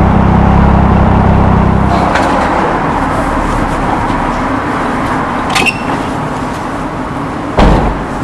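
Triumph Speed Triple RS 1050 cc inline-three engine through Arrow twin silencers, pulling with a deep exhaust note that fades about two seconds in as the throttle is eased off. After that comes a steady rush of wind on the microphone and road noise, with a brief thump near the end.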